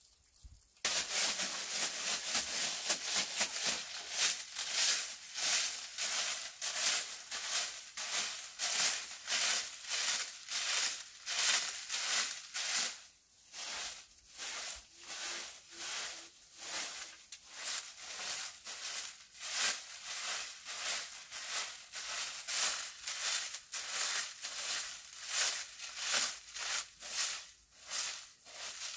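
Repeated scraping strokes of a hand tool working, about three a second, starting abruptly near the start with a short lull about halfway through.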